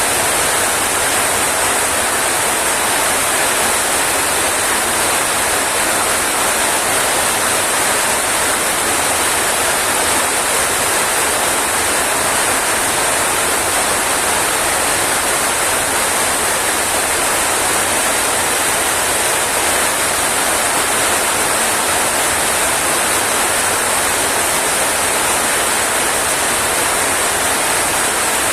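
Rain falling steadily: a dense, even hiss without a break.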